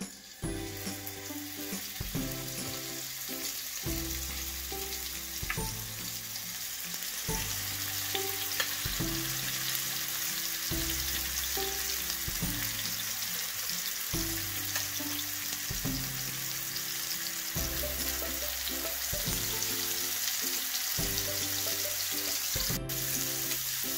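Marinated chicken pieces sizzling in hot oil on a grill pan, a steady hiss as pieces are laid in with tongs. Background music with a steady, repeating low beat runs underneath.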